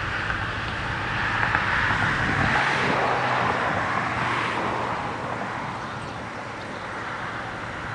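A vehicle passing by on the road, its tyre and engine noise swelling up over a couple of seconds and then fading away.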